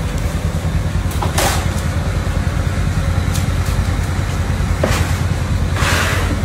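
Loud steady low rumble, with short hissing swishes about a second and a half in and twice near the end.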